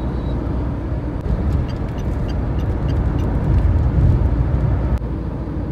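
Steady road and tyre rumble with engine noise, heard inside the cabin of a Tata Nexon driving along a highway.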